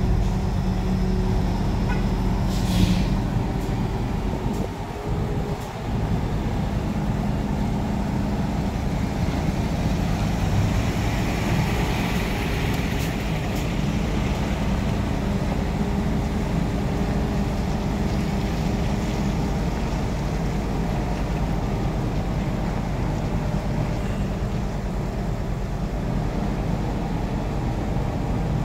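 Heavy diesel engines running steadily as a mobile truck crane hoists a shipping container off a truck trailer, with one short sharp noise about three seconds in.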